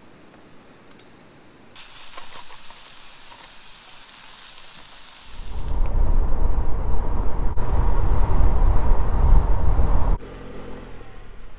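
Food sizzling in a frying pan on a canister camp stove, starting about two seconds in. About five seconds in it gives way to a car driving: a loud low rumble of road and wind noise that cuts off suddenly near the end, leaving a quieter engine hum.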